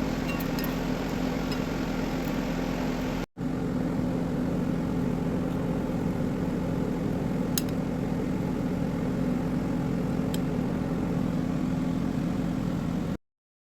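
Steady low mechanical hum with a constant drone, broken by a brief dropout about three seconds in and cut off abruptly near the end.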